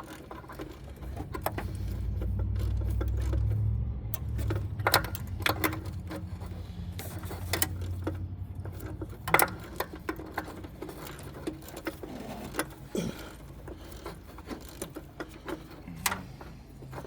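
Hand tools clicking and clinking against metal while work goes on under the hood, irregular separate clicks throughout, with a low rumble swelling up in the first half and fading out.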